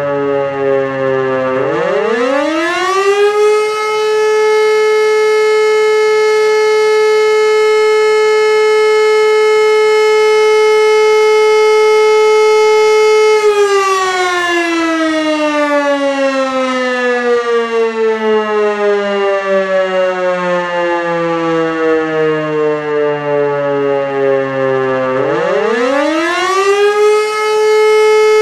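E57 electro-mechanical siren, driven by a 5 kW three-phase motor, winding up from a low pitch about two seconds in to a steady full tone. It holds that tone for about ten seconds, then slowly winds down, and winds back up to full pitch near the end. These are the on-and-off cycles of the fire-brigade alert signal (Feueralarm).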